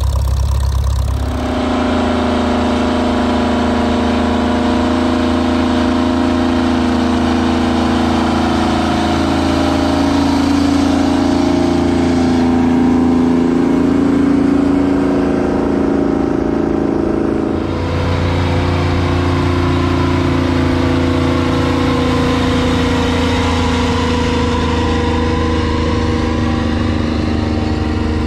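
Tractor engines running steadily, with the engine note changing abruptly twice: about a second in and again a little past halfway.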